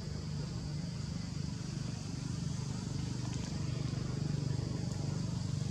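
Outdoor ambience: a steady low hum with a thin, high, steady insect drone above it.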